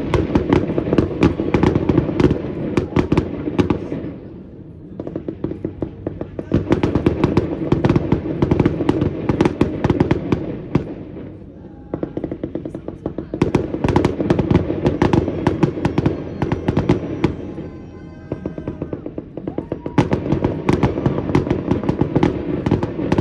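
Fireworks display: four waves of rapid crackling pops, each lasting several seconds, with short lulls between them.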